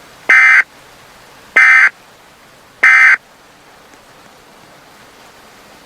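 Emergency Alert System SAME data tones: three short, identical bursts of digital data tones about 1.3 s apart over a steady hiss. They are the end-of-message code that closes an EAS alert.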